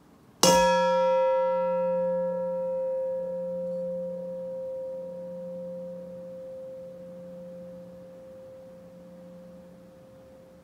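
Stainless steel mixing bowl struck once with a rubber spatula, then ringing on with a clear, bell-like tone. The higher overtones die away within a few seconds while the main note lingers with a slight pulsing and slowly fades.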